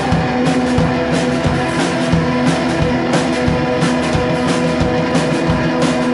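Live band playing rock: an electric guitar holds ringing notes over a steady drum-kit beat.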